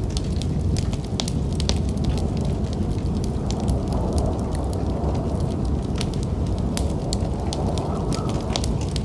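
Wood fire in a fireplace crackling, with frequent sharp irregular pops over a steady low rumble.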